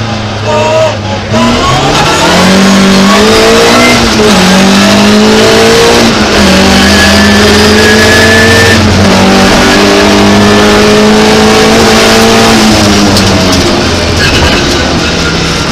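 Opel Ascona rally car's engine under hard acceleration, heard from inside the cabin: the revs climb and drop back at each of three gear changes, then fall away near the end.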